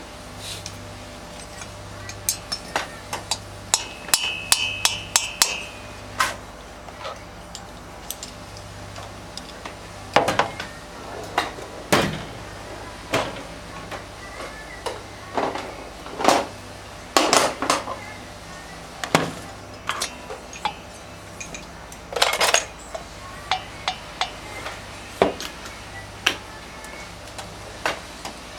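Metal tools and engine parts clinking and tapping in irregular sharp knocks, with a brief ringing metallic tone about four seconds in, over a steady low hum.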